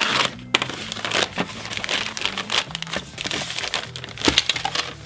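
Clear plastic packaging bag torn open and crinkled by hands as a plastic speaker adapter ring is pulled out of it, a run of irregular crackles and rustles.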